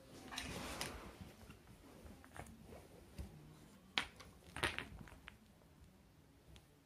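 Wooden alphabet blocks being handled by a small child: a few hard clacks of wood on wood, the loudest about four seconds in with a short cluster just after. A rustle of handling is heard in the first second.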